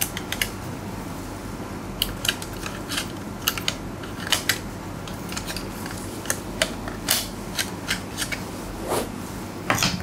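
Irregular small metal clicks and taps as a metal M.2 heatsink cover is set onto a motherboard and screwed down with a screwdriver.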